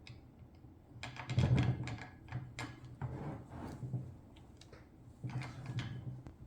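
Irregular clicks, knocks and rattles of a surface conditioning tool being handled, with its spindle lock button and wheel hardware worked by hand.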